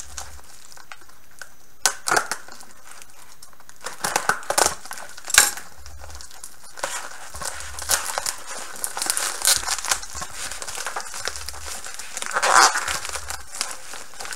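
White plastic shipping mailer crinkling and tearing as it is pulled open by hand. The sound comes in irregular bursts starting about four seconds in, with a sharp rip about five seconds in and another loud stretch near the end.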